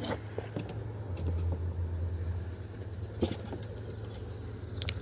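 A low, steady engine drone that swells about a second in, with a few sharp clicks and taps over it, one of the loudest about three seconds in and a small cluster near the end.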